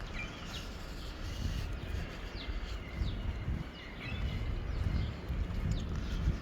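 Birds chirping outdoors: a string of short, falling chirps, irregularly spaced, over a low rumble of wind on the microphone.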